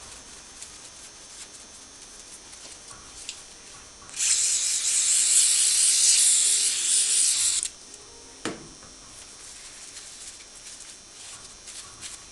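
Aerosol spray can hissing in one continuous burst of about three and a half seconds, starting about four seconds in, wetting a paper towel laid over the cylinder's gasket face so it can soak. Paper towel rustling and rubbing under gloved hands before and after, and one sharp click about a second after the spray stops.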